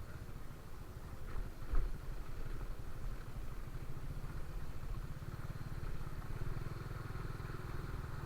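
Motorcycle engine running steadily, with a single knock about two seconds in.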